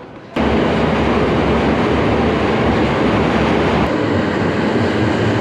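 Train running, heard from inside the carriage: a loud, steady rumble and rattle of the car on the rails that cuts in abruptly about a third of a second in, with a low hum that shifts up in pitch about four seconds in.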